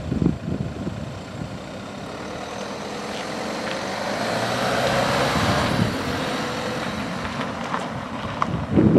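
A road vehicle's running and rolling noise swells to a peak about five seconds in, then eases off.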